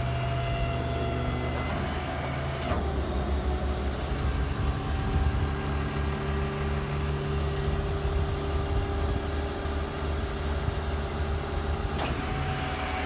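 Rollback tow truck's Cummins diesel running with the hydraulic bed being operated: a steady engine hum, joined about three seconds in by a rushing hiss and a steady hum from the hydraulics, which stop abruptly near the end.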